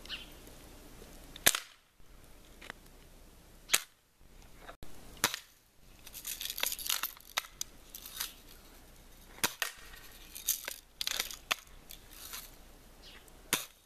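Air rifle firing: several sharp snapping shots a few seconds apart, the loudest about one and a half seconds in, with quieter clicks and rattles of the gun between shots.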